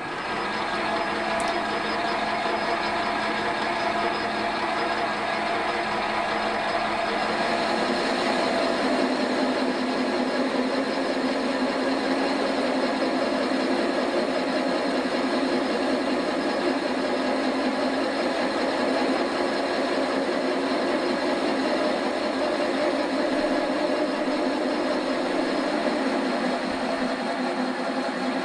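Metal lathe running steadily while a boring bar takes a light finishing cut inside a cast iron engine cylinder bore; the machine's note changes slightly about seven seconds in.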